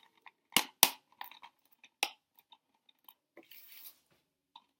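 Plastic DVD case and disc being handled: a couple of sharp plastic clicks and snaps about half a second to a second in, smaller clicks after, and a short rustling scrape about three and a half seconds in.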